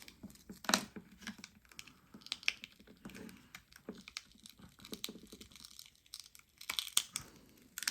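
An iPhone 12 battery being pried out of the phone, its adhesive crackling and tearing in a run of irregular sharp clicks and crackles.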